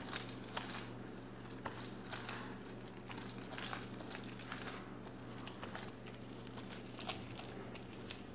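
A hand in a thin plastic glove squishes and kneads a soft mashed tomato mixture on a plate, making faint wet squelching with small clicks. A low steady hum runs underneath.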